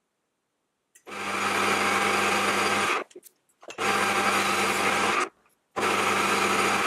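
Metal lathe running with a steady low hum, turning the end of a phosphor bronze workpiece. After about a second of silence it comes in three stretches, each starting and stopping abruptly.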